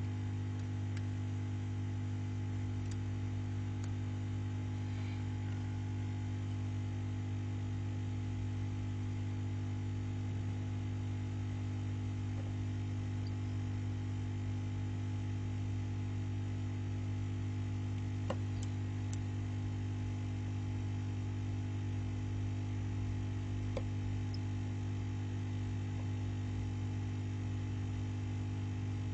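Steady electrical mains hum with a stack of even overtones, unchanging throughout, with a few faint, short clicks now and then.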